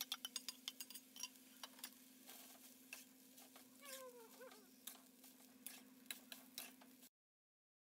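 Metal spatula clicking and scraping against a wok as rice is stirred and tossed: quick taps close together at first, then scattered ones, over a faint steady hum. The sound cuts off abruptly about seven seconds in.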